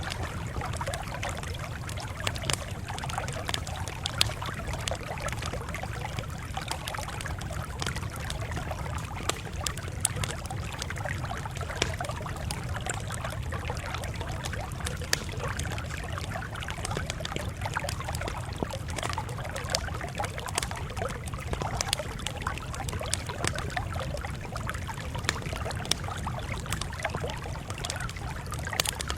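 Campfire burning steadily, with irregular sharp crackles and occasional louder pops over a low rumble of the flames.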